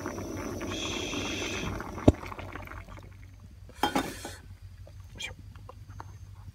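Pot of tom yum soup simmering and bubbling, with a sharp clink of a utensil against the pot about two seconds in. The bubbling dies away about three seconds in, and a brief clatter of cookware follows.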